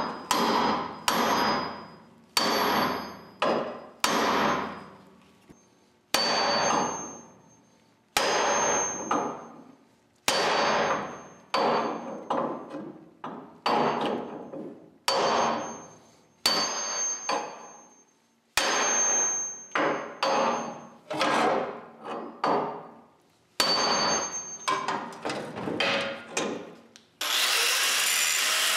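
A small sledgehammer striking a steel bumper bracket on a Willys MB jeep, a long irregular series of blows, each with a high metallic ring that fades. Near the end an angle grinder starts up, grinding off excess weld.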